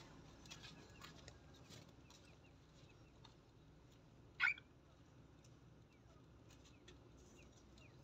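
Aviary budgerigars and a cockatiel: faint scattered chirps, and one loud, short call about four and a half seconds in.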